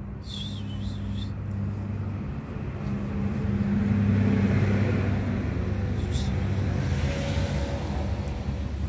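A motor vehicle's engine humming steadily, growing louder in the middle and then easing off.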